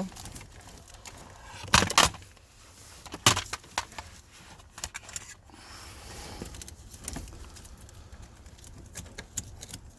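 Clicks and rattles of hands handling a car's wiring harness and plastic connectors, the loudest pair about two seconds in and another just past three seconds, with lighter ticks in between.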